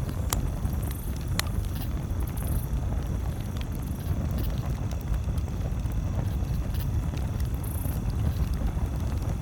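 Campfire crackling, with a few sharp pops, the two loudest in the first second and a half, over a steady low rumble.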